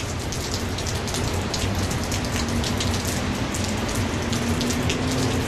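Steady rain falling, with many individual drops striking a nearby surface over a low steady hum.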